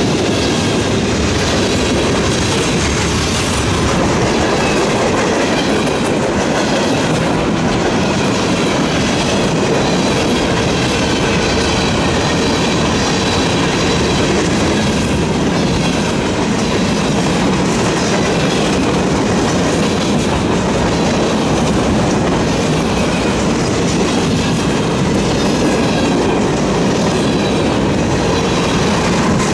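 Freight cars of a CSX train, covered hoppers and bulkhead flatcars, rolling past close by. The steel wheels make a steady rumble and clatter over the rail joints.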